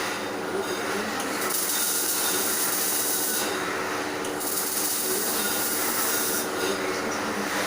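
MIG welding arc crackling and hissing on steel, with a steady hum underneath; the high hiss swells in two stretches, from about a second and a half in and again from about four and a half seconds in.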